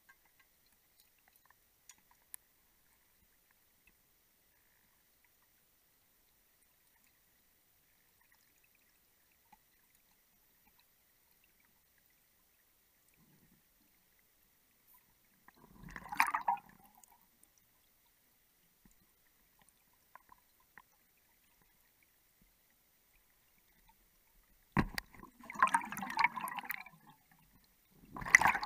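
Underwater near silence broken by three short bubbling gurgles of gas escaping from a diver's breathing gear: one about halfway through, a longer one of about two seconds near the end, and a brief one at the very end.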